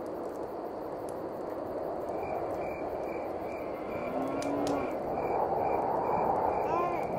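Night-time countryside ambience: a frog and insect chorus, with a high chirp repeating about twice a second over a steady hiss.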